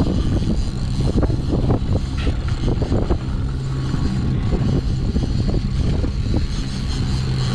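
Boat engine running steadily at low revs, a constant low hum, with scattered short knocks and clicks over it.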